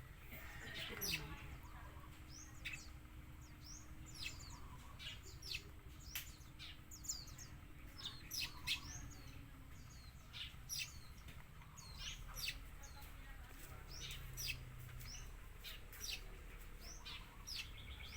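Small birds chirping, many short high chirps scattered throughout, over a faint low background rumble.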